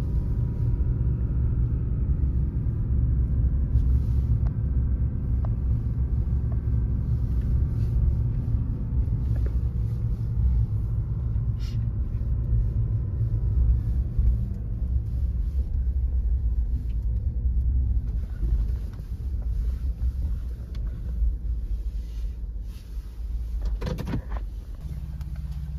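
Car interior noise while driving: a steady low road and engine rumble, with a couple of knocks near the end.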